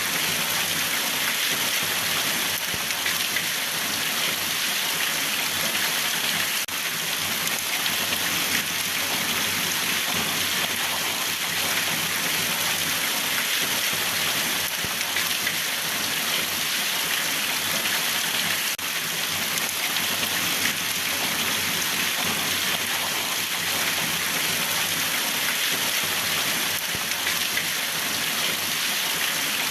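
Steady rain falling and pattering on a surface, an even hiss with no breaks.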